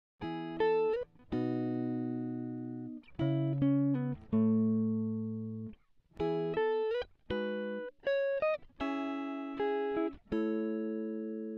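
Background music: a clean guitar playing plucked notes and chords that ring and fade, in short phrases with brief pauses between them.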